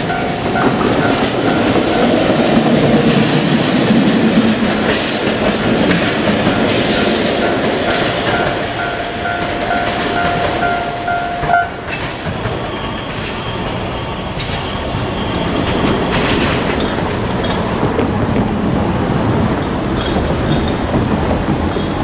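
JR Freight ED76 electric locomotive running light over the tracks, its wheels clattering over the rails, while the level-crossing warning alarm sounds a steady repeating tone that cuts off about halfway through.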